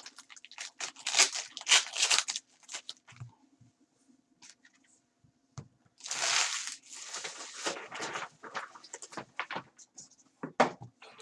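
Foil wrappers of Panini Contenders football card packs being torn open and crinkled by hand: bursts of crackling in the first two seconds, a quiet stretch, then a longer loud tear about six seconds in followed by scattered crinkles and clicks.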